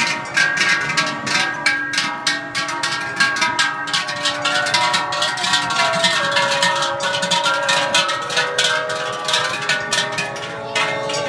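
Many large cowbells on a herd of walking cows, clanging unevenly and continuously with each step, their ringing tones overlapping into a dense, loud jangle.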